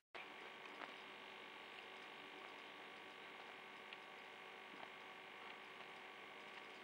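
Near silence: a faint steady hum and hiss of room tone, with a couple of tiny faint ticks.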